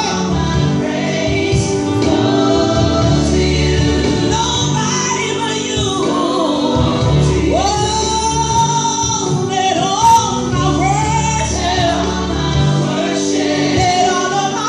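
Gospel worship music: a woman singing over a band with bass and keyboard, backed by choir voices.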